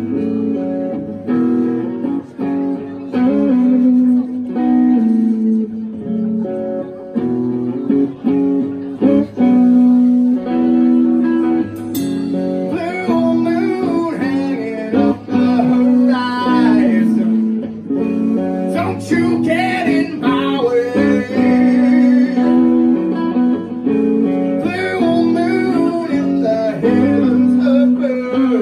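Live rock band playing: electric guitars, bass guitar and drums, with a male lead vocal over the guitars.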